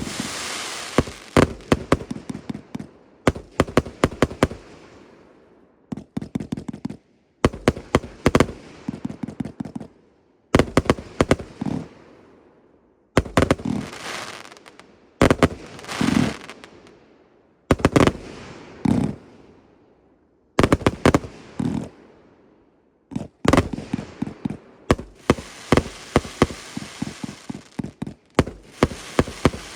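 Firework cakes firing: volleys of sharp reports every two to three seconds, each followed by a fading crackle. Past the middle the reports come faster and closer together.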